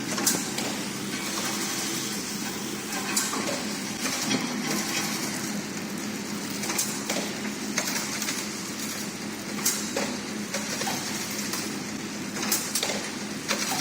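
Incense stick counting and packing machine running: a steady hum with irregular sharp clicks and clacks of its moving parts.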